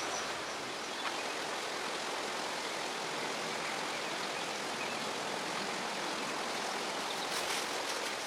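Steady rush of river water flowing over stones, an even, unbroken hiss, with a faint click about a second in.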